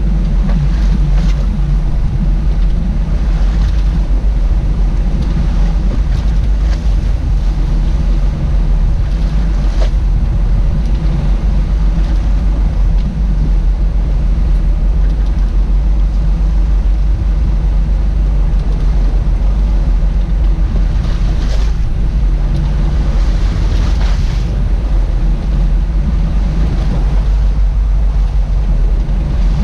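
Fishing boat's engine running steadily under way, with wind on the microphone and the wash of the sea.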